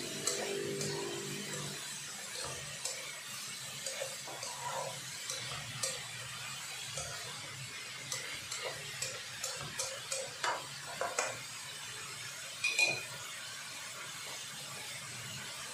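Plastic slotted spatula stirring diced vegetables in a nonstick wok: short scrapes and taps against the pan over a faint frying sizzle. Near the end comes one louder clink as the spatula is set down on a plate.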